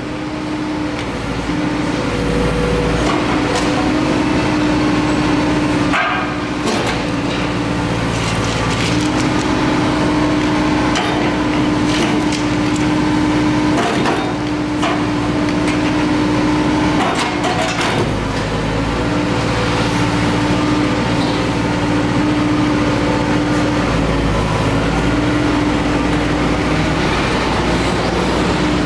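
Diesel engine of a Lühring road-rail excavator running steadily, its pitch shifting now and then as the machine works. Scattered sharp knocks and clanks come from its grab handling the old rails and sleepers.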